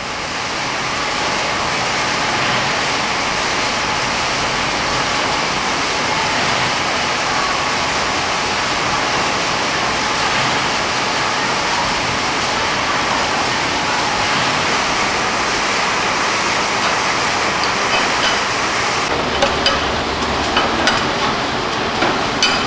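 Steady rushing noise of a veneer-slicing workshop with its machinery running. About three-quarters of the way through the noise thins and a few sharp knocks sound.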